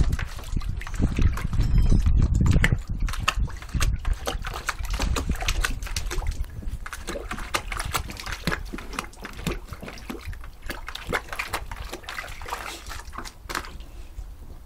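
A dog pawing and dipping its head in a bucket of water, making irregular splashing and sloshing, loudest in the first few seconds.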